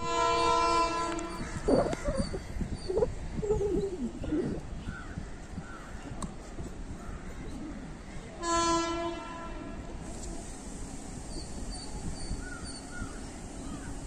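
Two blasts of an Indian Railways WAP-7 electric locomotive's horn as the train approaches unseen: one just over a second long at the start, a shorter one about eight and a half seconds in. Birds chirp in between.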